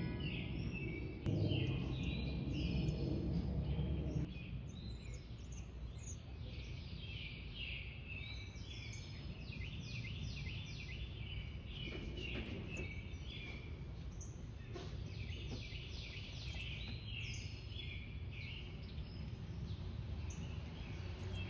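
Many small songbirds chirping rapidly over one another, with a low rumble during the first four seconds.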